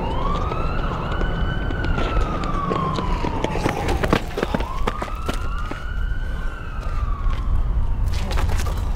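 Siren wailing in two slow rise-and-fall cycles, each about four seconds long, with a few sharp knocks mixed in.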